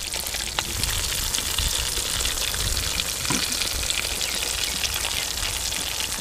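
Breaded chicken drumsticks deep-frying over medium heat in oil in an aluminium pot: a steady crackling sizzle made of many fine pops.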